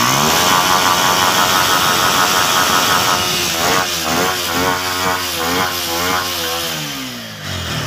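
TVS Apache RTR 160 4V's single-cylinder engine, breathing through an open cone air filter, running at raised revs and then revved up and down repeatedly. It drops back toward idle near the end.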